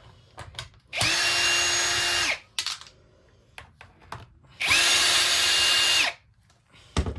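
Power drill-driver running in two bursts of about a second and a half each, backing screws out of a vacuum's plastic housing, with light clicks of handling in between.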